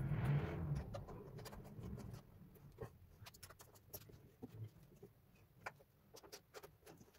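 Hands scraping and pressing on a ceramic floor tile for the first second or two, then faint scattered clicks of plastic tile-leveling clips and caps being fitted at the joints.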